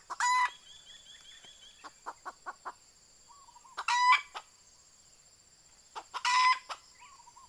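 Red junglefowl rooster giving three short, loud, harsh calls a few seconds apart.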